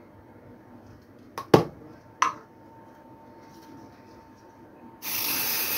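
A few sharp knocks as the metal loaf tin is handled on the counter, then, about five seconds in, the loud steady hiss of an aerosol can of non-stick cooking spray starting up as the tin is greased.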